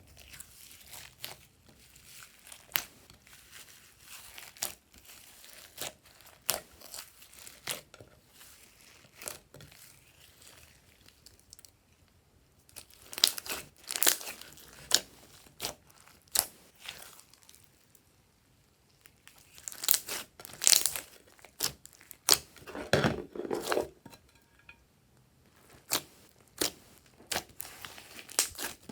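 Glossy slime being worked by hand, giving irregular sticky pops, clicks and crackles, louder in clusters about halfway through and again about two-thirds of the way in.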